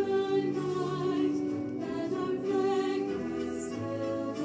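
Music: a choir singing slow, held notes.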